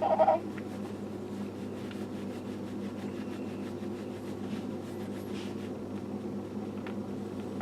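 A newborn baby gives one short cry right at the start, then a steady low mechanical hum fills the room, with faint rustling and soft ticks.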